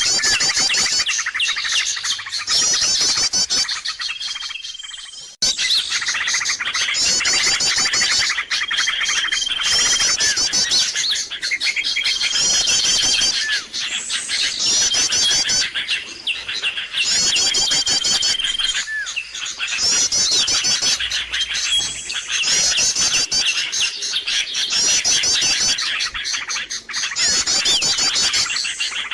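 Bird-lure recording of a noisy chorus of many small birds chattering and chirping. A pattern repeats about every two seconds: a short held whistle, then a fast run of high chirps.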